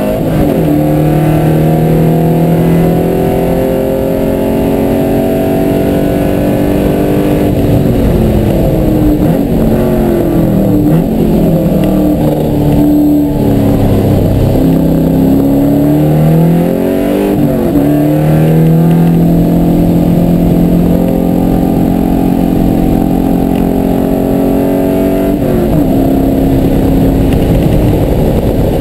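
A car's engine heard from inside the cabin, driven hard on a race track. It drops in pitch on an upshift just after the start, then climbs under full throttle. While braking hard it swings up and down several times as it downshifts, then pulls again with rising pitch, with another upshift and drop a few seconds before the end.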